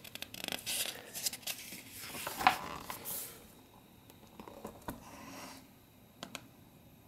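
Pages of a hardcover book being turned: paper rustling and swishing with small crackles, loudest about two and a half seconds in, then a fainter rustle and a couple of light taps near the end.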